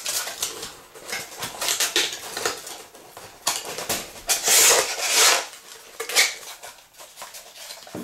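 Heavy-duty cardboard box being folded together by hand: crisp clicks and crackles as flaps are creased and tabs pushed into place, with a longer, louder scraping rub of cardboard on cardboard about halfway through.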